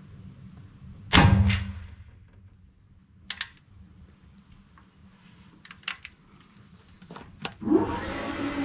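A muzzleloading rifle fires once about a second in: a single loud shot with a ringing tail. A few small clicks follow as the rifle is handled. Near the end a steady whirring hum starts up.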